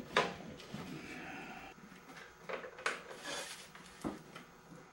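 Hands handling cables and fitting a plug into a socket on the camera body: a few sharp clicks and knocks amid rustling.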